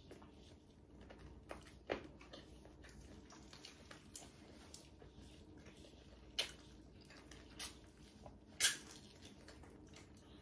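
Mouth sounds of eating meat off the bone by hand: soft chewing and sucking with scattered lip smacks, the sharpest about two, six and a half and nearly nine seconds in.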